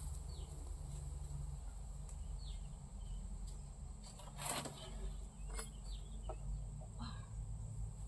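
Outdoor ambience: a steady low rumble and a steady high hiss, with a few short bird chirps scattered through. A brief knock about four and a half seconds in.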